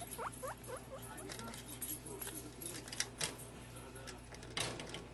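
Guinea pig moving about its wire cage: rustling bedding, light clicks and rattles of the cage, with a few short rising squeaks about half a second in. A sharper rustle comes near the end.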